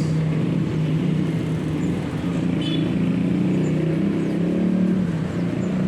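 An engine running steadily, a low hum that wavers slightly in pitch.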